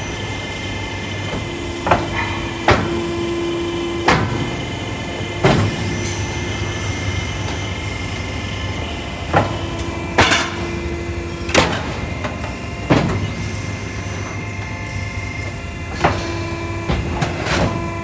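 HVAC duct production machinery running with a steady hum and a humming tone that comes and goes. About nine sharp metal clanks are spread irregularly through it as galvanized steel sheet is fed and bent on the forming and folding machines.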